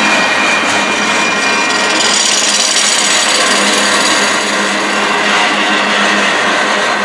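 Empty intermodal well cars rolling past close by: a steady grinding of steel wheels on rail with a high, ringing squeal that brightens about two seconds in.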